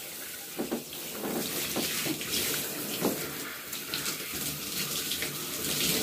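Water running from a tap and splashing as solid shampoo is rinsed out of hair, a steady hiss with a few brief splashes.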